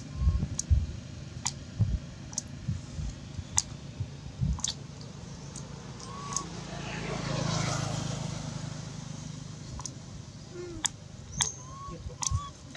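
Outdoor ambience: a vehicle passes on the road, its rumble and tyre hiss swelling and fading around the middle. Scattered sharp clicks and short bird chirps come and go throughout.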